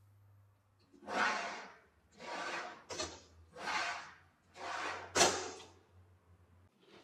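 Vacuum former's clamping frame sliding up and down its aluminium rails: four rushing slides, each under a second, with sharp knocks about three and five seconds in as it hits its stops. A faint low hum runs underneath.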